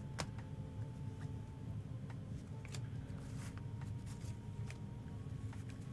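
Trading cards being handled and slid against each other: faint scattered clicks and rustles over a steady low hum.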